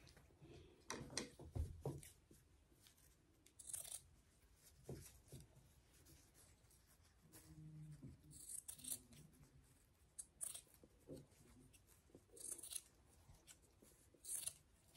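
Fabric shears cutting through satin dress fabric: a series of faint, short snips spaced a second or more apart.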